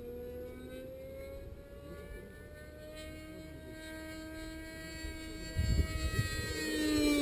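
Rossi .53 two-stroke glow engine with a tuned pipe on an RC model plane, running steadily with its pitch creeping slowly upward. From about five and a half seconds in a rough low rumble joins and the sound grows louder.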